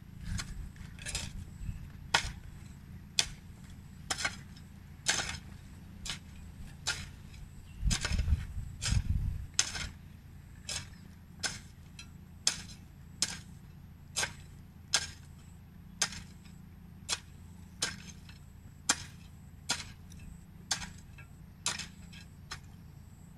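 Hoe blade chopping into garden soil in steady, repeated strokes, about one a second, while the soil around the crop plants is loosened and weeded.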